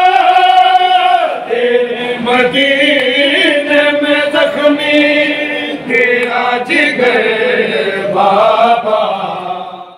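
A crowd of men chanting a noha, a Shia mourning lament, in unison with long held notes. It fades out right at the end.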